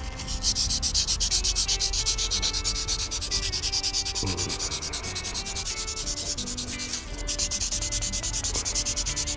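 Fine 600-grit sandpaper rubbed by hand in quick back-and-forth strokes along the chrome rod of a mini excavator's arm hydraulic cylinder, a steady scratchy hiss that eases in the middle and picks up again near the end. The rod is being smoothed of rust pitting so it won't make the cylinder seal leak oil.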